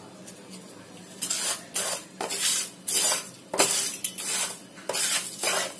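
A spatula stirring dry-roasted whole spices, lentils and coconut pieces in a nonstick frying pan, mixing in salt: dry grains rattling and scraping against the pan in repeated strokes, about two a second, starting about a second in.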